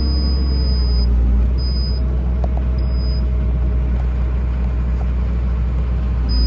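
Tractor engine running steadily with a deep, loud rumble, pulling a round baler in a straw field. A faint high-pitched tone cuts in and out several times.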